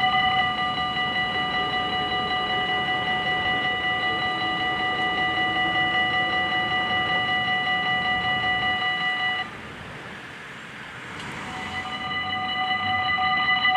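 Dutch level-crossing warning bells ringing with a fast, steady beat. They stop suddenly about two-thirds of the way through, and after a quieter gap they start again near the end.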